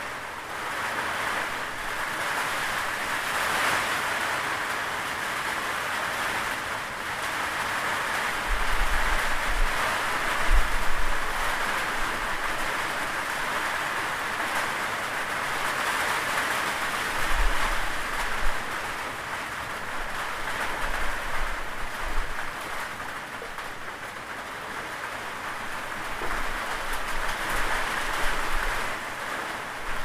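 Steady rain falling, an even hiss, with a few brief low rumbles now and then.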